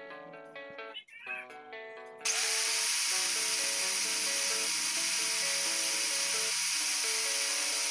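Electric angle grinder switching on about two seconds in, its whine rising and settling to a steady pitch, then running with a steady grinding hiss as a thin metal rod is held against its abrasive disc to sharpen a fishing-dart point. Background music plays throughout.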